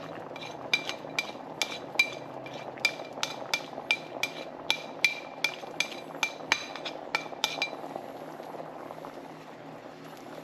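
A spoon tapping and scraping against a plate, about two or three sharp clinks a second, knocking chopped cilantro into a pan of simmering beans. The tapping stops about three quarters of the way through, leaving a steady low hum.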